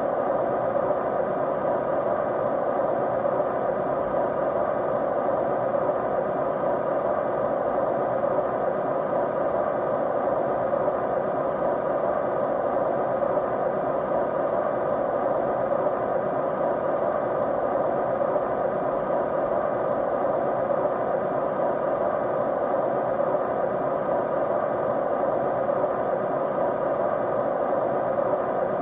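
Steady white noise that does not change, its hiss strongest in the middle range, with a few faint steady tones running through it.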